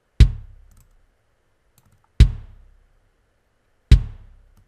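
Recorded kick drum sample played back three times: a quick, low-endy hip-hop-style kick, EQ'd and gated, with the room mic blended underneath and its fade-out lengthened, so each hit carries a short roomy tail that dies away within about half a second.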